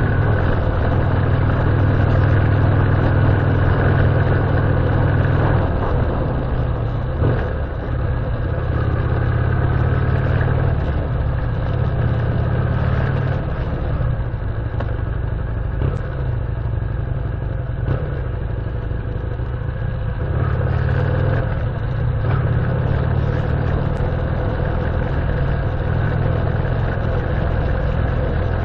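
A vehicle engine running steadily at low revs, with a few brief dips in level.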